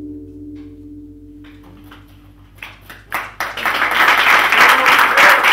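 A last guitar chord rings and fades out. Scattered hand claps follow and swell into full audience applause about three and a half seconds in.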